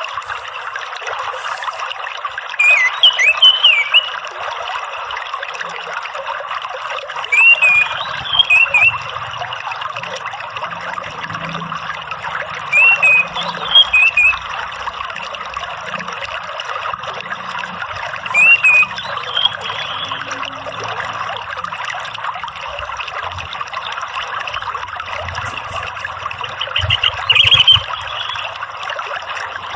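Orange-headed thrush singing short phrases of quick, gliding whistled notes, five times at intervals of about five seconds, over the steady sound of trickling water.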